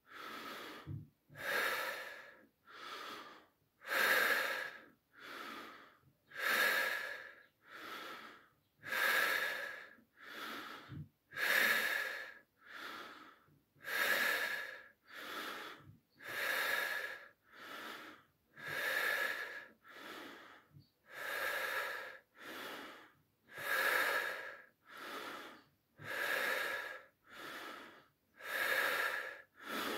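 A man breathing deeply and rhythmically through his mouth, close to the microphone: a full belly inhale, then a relaxed, unforced exhale, with no pause between them. Each breath is a rush of air, about one every two and a half seconds, alternating louder and softer.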